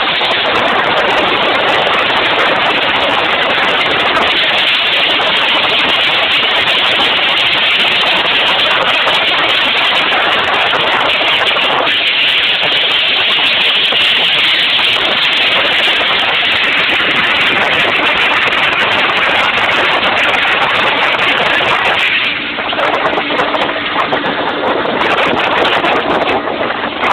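Speedboat under way at speed: a loud, steady rushing noise of the running boat. About 22 seconds in the rush eases and a steady engine hum comes through.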